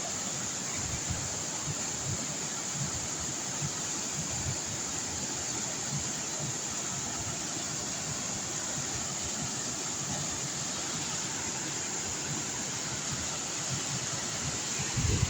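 Waterfall rushing steadily, with a brief low thump near the end.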